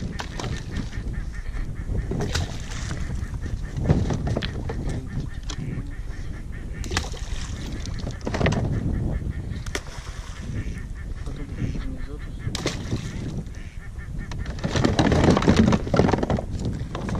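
Ducks calling with repeated quacks.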